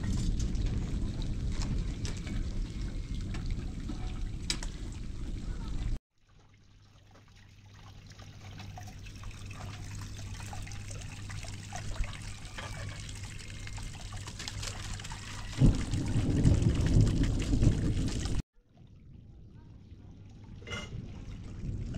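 Water trickling and pouring, in several short shots; a louder rush of water comes in after about fifteen seconds.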